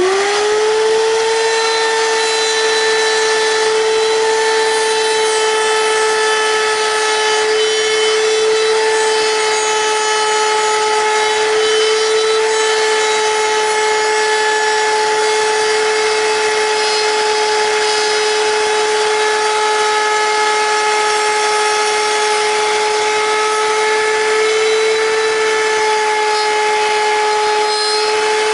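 Router motor spinning up right at the start, then running at a steady high-pitched whine, with the rushing noise of the bit cutting around a pattern in a pin-router setup.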